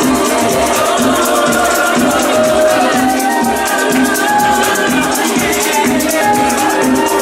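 Soulful house music playing loud and steady, with a fast, even shaker rhythm over a beat and a melody line.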